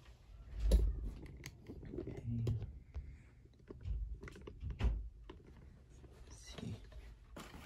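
Handling noises: a string of irregular clicks, knocks and dull thumps, the loudest about a second in, as the prop's plug and the camera are moved about.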